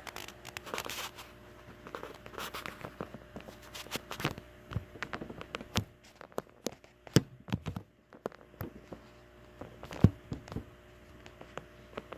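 Irregular sharp taps, clicks and knocks of close handling, the loudest a little after seven seconds and again at about ten seconds, over a steady low hum.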